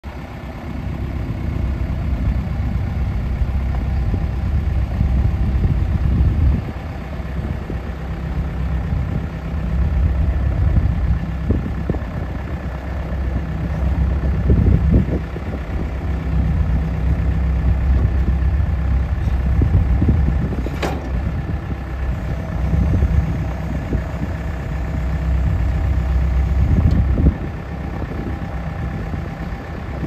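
Skid steer loader's engine running, its level swelling and dipping as the machine is driven and the loader arms work the bucket. A single sharp click comes about two-thirds of the way through.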